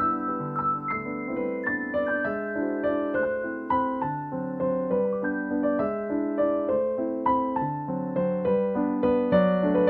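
Background piano music: a gentle melody of single notes over sustained chords, several notes a second.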